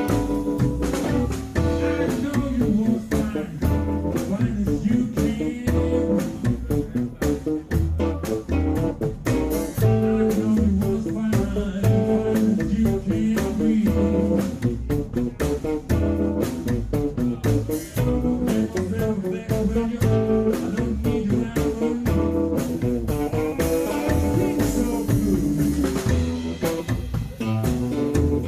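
Blues band playing live: harmonica through a vocal microphone over acoustic guitar, upright double bass and drums keeping a steady beat, with a man singing for part of it.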